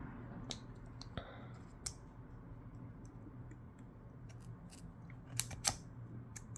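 Scattered small, sharp clicks and ticks of a thin metal pry tool working between an iPhone 12's screen and its metal frame, with two louder clicks close together near the end, over a faint steady hum.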